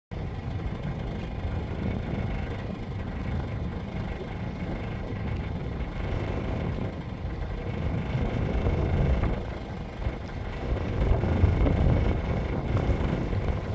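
A car driving: steady road and engine rumble, with a faint steady whine and some wind noise.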